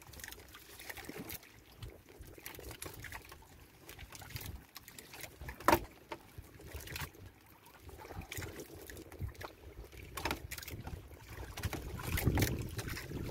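Water sloshing against a small wooden boat's hull, with a low rumble and scattered light knocks; the loudest is a single sharp knock a little before halfway.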